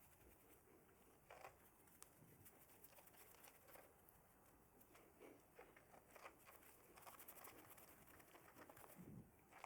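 Near silence: room tone with a few faint scattered clicks and taps.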